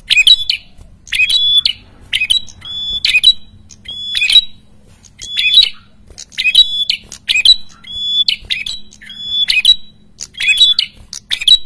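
A caged prenjak kepala merah calling over and over, with loud, sharp, chattering calls about once a second. This is a bird in full, persistent song, the kind of busy calling used as a lure to draw wild birds of its kind.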